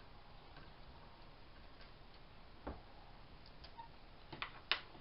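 A few scattered clicks and light knocks of small metal parts being handled as a hedge-trimmer head is taken apart, a screw and spacer sleeve coming out; the sharpest click comes near the end.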